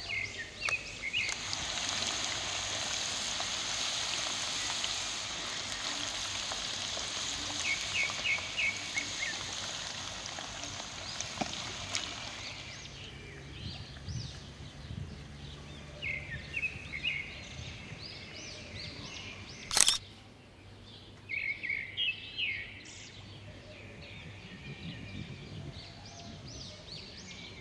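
A steady hiss of food cooking in a pan for the first ten seconds or so, with birds chirping in short runs throughout. One sharp knock about twenty seconds in is the loudest sound.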